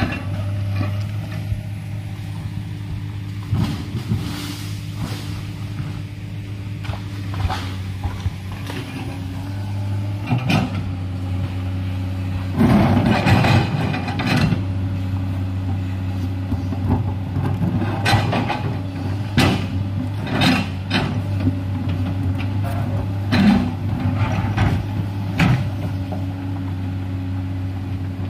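Komatsu hydraulic crawler excavator's diesel engine running steadily under load while its bucket scrapes and knocks against rock and stony earth. The scraping is heaviest in a noisy stretch about halfway through.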